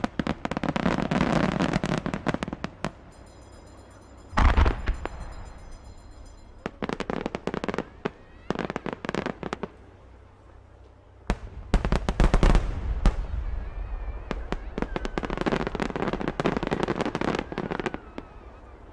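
Fireworks going off: clusters of rapid crackling bursts, with deep booms about four seconds in and again near the middle.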